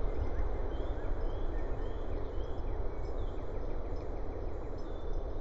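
Steady outdoor background noise with a strong low rumble, and faint songbirds chirping over it.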